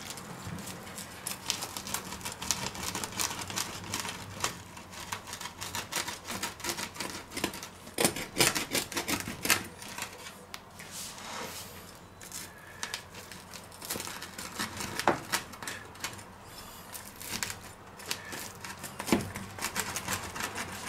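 Pizza cutter wheel rolling through the crust of a fresh-baked pizza and onto a wooden board: a run of irregular crunches and clicks, with a few louder cracks.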